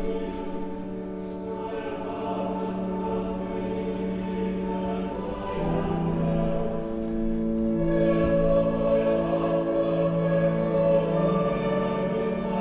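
Choir singing in long, sustained chords. The chord changes about five and a half seconds in and grows fuller after about eight seconds.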